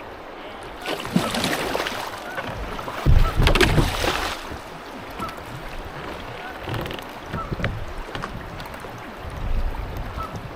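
Water splashing and sloshing around a kayak moving on the river, in irregular surges, the loudest about three seconds in with a low rumble.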